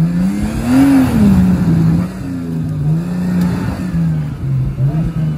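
Off-road 4x4's engine revving unevenly, its pitch climbing sharply about a second in, then falling and rising again as the throttle is worked.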